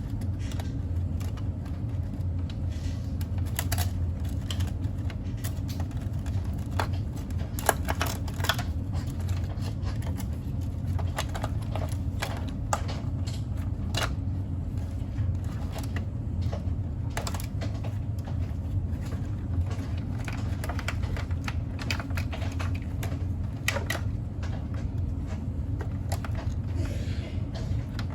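Irregular light clicks and taps, like small parts and tools being handled, over a steady low hum.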